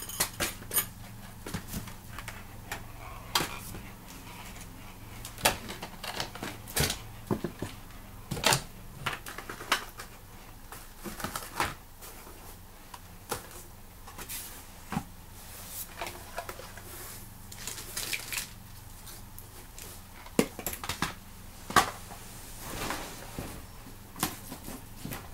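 Irregular clicks and knocks of toys and boxes being handled and set down while someone rummages through a storage box, with a brief rustle near the end.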